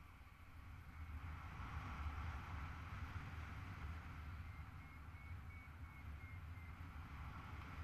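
Wind rushing and buffeting over a paraglider pilot's camera microphone in flight, a low rumble under a steady airy rush that grows louder about a second in. A faint high tone comes in short pulses, rising and then falling in pitch, in the second half.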